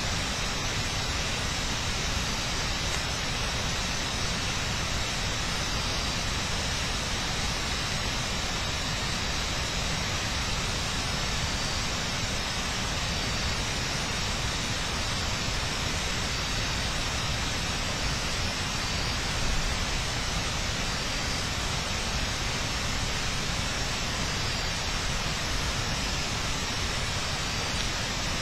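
Steady, even hiss with a faint high steady tone and no distinct events.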